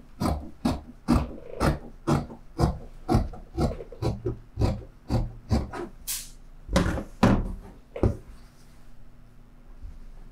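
Dressmaking scissors cutting through fabric: a steady run of crisp snips, about two a second, that stops about seven seconds in.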